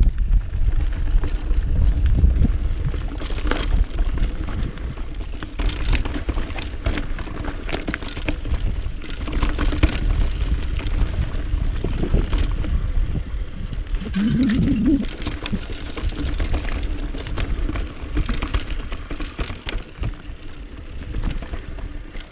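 Mountain bike ridden fast down a dry dirt trail: wind buffeting the bike-mounted microphone, tyres on dirt and stones, and the bike's frame and chain rattling over bumps. A short warbling tone about two-thirds of the way through.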